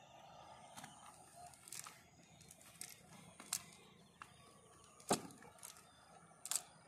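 Cast net being handled and shaken out: a handful of sharp, brief clicks and knocks, the loudest about five seconds in, over a faint steady high-pitched hum.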